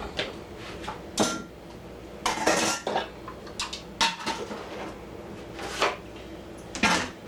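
Kitchen dishes and utensils clinking and clattering in short irregular knocks while vegetables are being cut up and handled for pickles.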